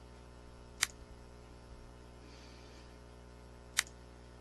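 Two sharp computer-mouse clicks about three seconds apart, over a steady low electrical hum.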